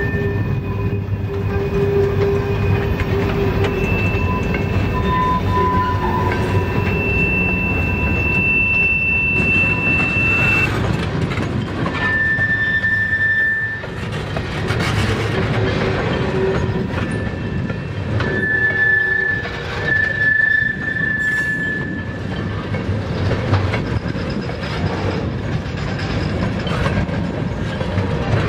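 Freight train tank cars rolling past on steel wheels, a steady rumble and clatter from the wheels on the rails, with high-pitched wheel squeal whining on and off several times.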